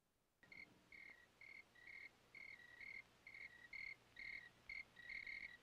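Faint cricket chirping: short high chirps, two or three a second, from at least two voices slightly apart in pitch, starting about half a second in.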